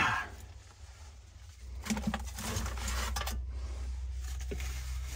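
Hand scoop scraping through wet well mud and dropping it into a plastic bucket, with a few short scrapes and knocks about two to three and a half seconds in over a steady low rumble. A brief falling voice sound is heard right at the start.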